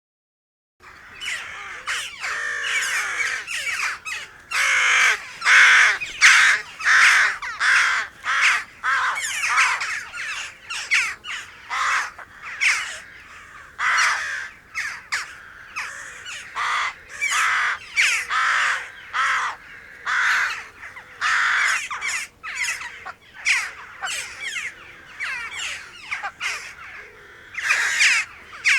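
Crows cawing, harsh calls following one another in quick succession, beginning about a second in.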